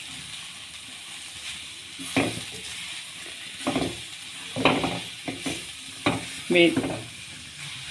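Spatula stirring and scraping shredded chicken and flour around a metal kadai, about half a dozen scraping strokes from about two seconds in over a steady sizzle of frying in oil. The flour is being toasted in the oil to cook off its raw taste.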